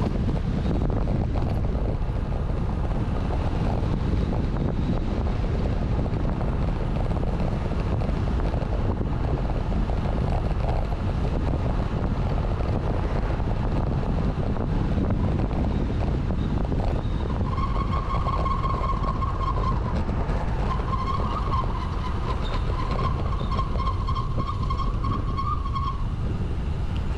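Wind and road rumble on a bicycle-mounted GoPro microphone while riding, a steady low rush. Past the middle a high-pitched tone with overtones sounds for about two seconds, then again for about five seconds near the end.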